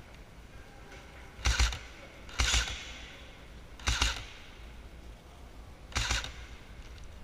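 Airsoft gun firing four single shots, unevenly spaced, each a sharp crack.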